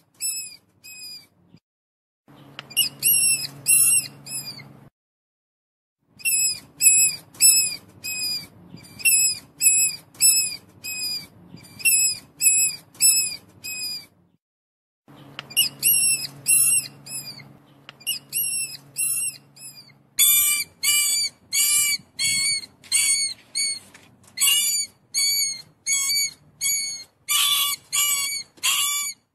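Mouse squeaking: a series of short high-pitched squeaks, two or three a second, in bouts broken by brief pauses. About twenty seconds in, the squeaks come faster and harsher.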